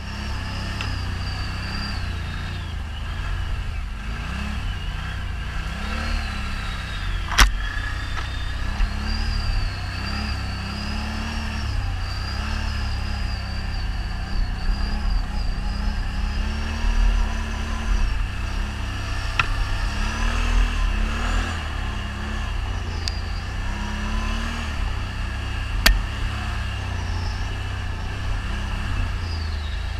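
ATV engine running under riding, the throttle repeatedly opening and easing off so the pitch rises and falls, with a high whine above it. A sharp knock sounds about seven seconds in and another near the end.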